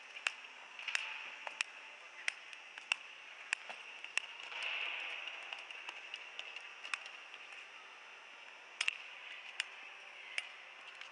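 Speed skates' blades clicking sharply on the floor and ice as the skater steps out, about one or two clicks a second and fewer later on, with a blade scraping and gliding over the ice for a couple of seconds about four seconds in.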